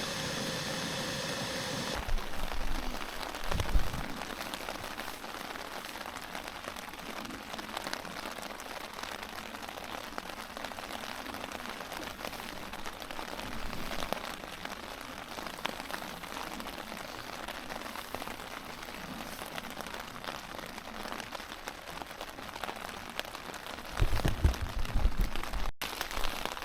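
Steady rain falling, with many small drops tapping, and a few low bumps near the start and near the end.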